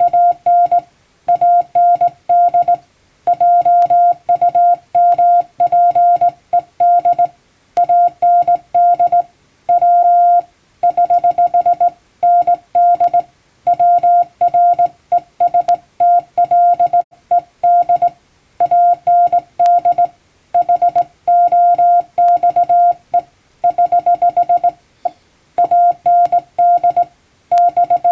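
Hand-keyed Morse code (CW): one steady beep switched on and off in dots and dashes, grouped into letters and words with short gaps, sending plain-language English text at a clean, even fist.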